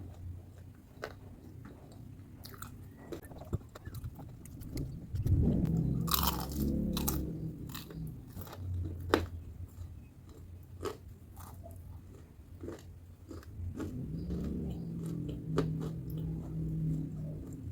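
Close-up chewing and biting of crispy battered fried tempeh, with many sharp crunches over steady chewing. The crunching is loudest about five seconds in.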